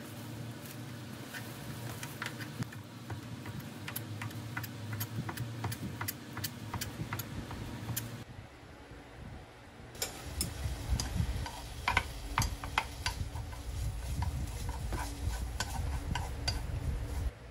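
Kitchen knife slicing a rolled egg omelette on a cutting board, a steady run of taps a couple of times a second. Then a spatula clicking and scraping in a frying pan as strips are stir-fried, over a low rumble.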